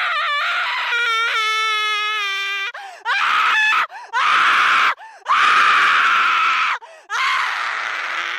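Cartoon voice screaming: one long, held, high-pitched scream, then four harsh, breathy screams in a row, each about a second long with short gaps between them.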